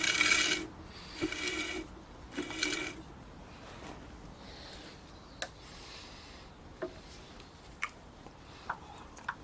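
Steel knife blade scraped briefly against a sharpening stone three times, each scrape about half a second long, in a Sharpie-marker test of where the bevel meets the stone. A few light clicks and taps follow.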